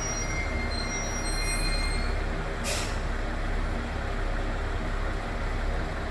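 ET127-series electric train running slowly at a platform: a low steady rumble with a thin high wheel squeal that fades out about two seconds in, then one short burst of air hiss from the brakes a little later.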